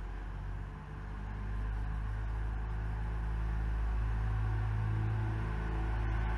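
Steady low diesel engine hum of road paving equipment, growing louder about a second in.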